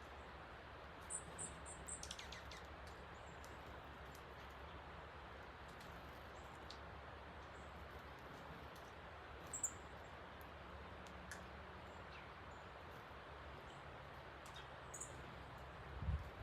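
Steady rushing of a rain-swollen creek running high after heavy rain, with short high chirps from small birds at a feeder a few times, near the start, around the middle and near the end. A soft low thump just before the end.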